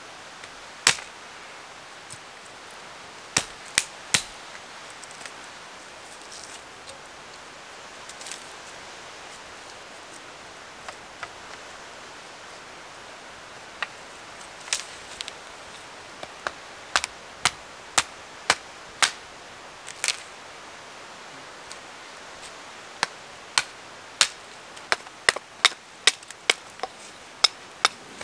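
Wood being chopped: sharp single knocks at irregular intervals over a steady hiss, a few scattered ones at first, then quicker runs of strikes through the second half.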